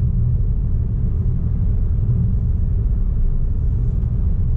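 Steady low rumble of a Fiat Mobi with a 1.0 four-cylinder engine on the move, heard from inside the cabin: road and tyre noise with the engine running under it.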